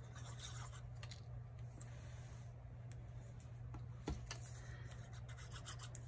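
Faint scratching and rubbing of a Tombow liquid glue bottle's tip dragged over the back of a cardstock flower, with a light tap about four seconds in, over a steady low hum. The glue is barely flowing: the bottle seems clogged or running out.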